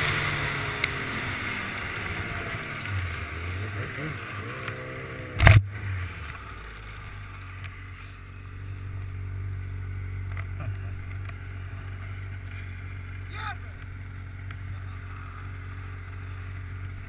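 Snowmobile engine winding down from speed, its pitch falling as the wind noise fades, with one sharp, loud thump about five and a half seconds in; after that the engine idles steadily.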